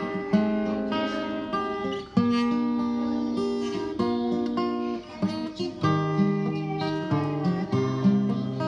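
Acoustic guitar music, with chords strummed and picked and a new chord starting every second or so.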